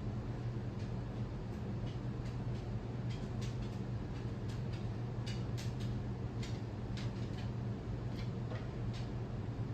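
Irregular light clicks and ticks, scattered unevenly, over a steady low electrical hum.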